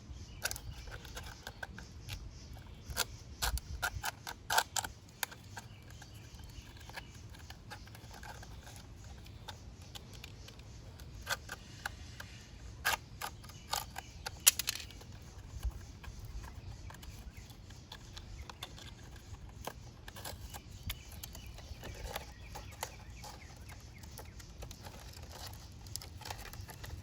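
Scattered light clicks and handling noises, with no sander running, as sandpaper is trimmed to size and fitted to a palm sander. The clicks cluster in three spells: one a few seconds in, one around the middle, and a few more later.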